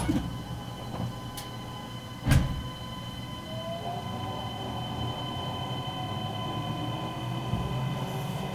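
Keisei New AE-series electric train running, heard from inside the passenger car: a steady rumble with a faint motor whine that rises in pitch from about three and a half seconds in. There is a sharp knock right at the start and another about two seconds in.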